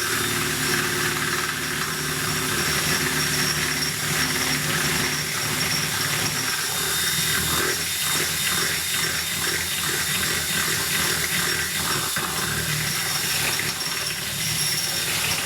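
Electric drill running steadily as it bores out plastic, with a motor hum under a hiss; it stops abruptly at the very end.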